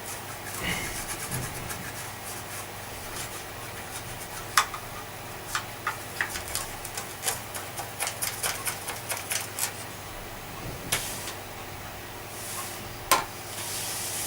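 Parts of a vintage Hoover Junior upright vacuum cleaner being handled and worked on: scattered small clicks and knocks, a quick run of clicks in the middle, two sharper knocks, and brief rubbing near the end.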